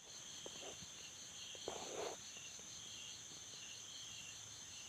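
Crickets and other night insects chirping: a steady high trill over a fast, regularly pulsing chirp. There is a short scuff about two seconds in and a few faint clicks.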